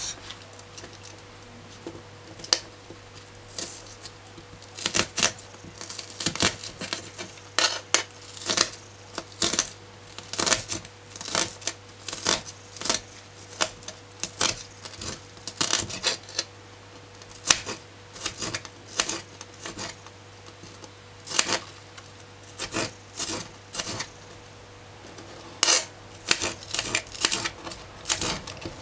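Kitchen knife dicing an onion on a cutting board: sharp knocks of the blade striking the board, coming in irregular runs of quick chops with short pauses between.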